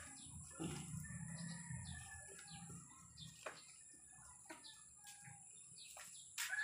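Faint backyard ambience: chickens and small birds calling at a distance, with a few faint clicks scattered through.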